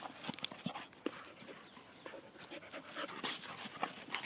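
Dog panting, with scattered soft crackles of dry leaf litter underfoot.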